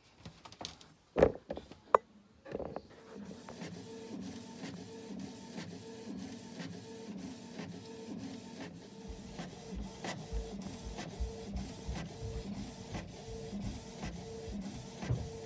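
Canon inkjet printer printing sticker sheets: the print-head carriage runs back and forth in a steady, even rhythm of short passes, about two a second. Two sharp clicks come just before it starts.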